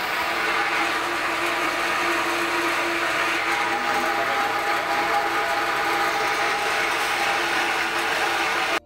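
Electric jet water pump running steadily with a motor hum and whine, charging the system and building water pressure. It stops abruptly near the end.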